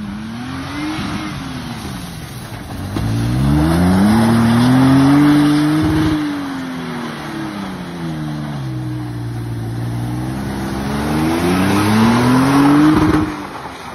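Pickup truck engine revving hard, its pitch climbing and falling several times over a steady rushing noise. It is loudest about four to six seconds in and again near the end, where it drops away.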